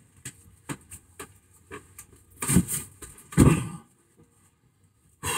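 Knocks and clunks of a heavy manual gearbox and its bell housing being lifted and shifted about on a wooden workbench: several light knocks, then two louder, longer handling sounds about two and a half and three and a half seconds in.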